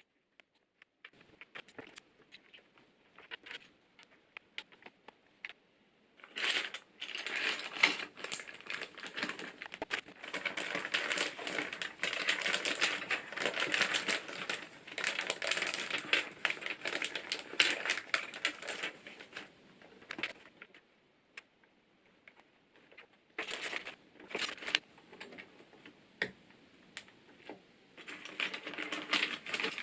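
Thick PBT keycaps being handled and pressed onto the stems of a Hansung GK888B electro-capacitive keyboard, giving rapid, irregular plastic clicking and clattering. The clicking is sparse at first and thickens into a dense run after a few seconds. It pauses briefly past the middle, then starts again.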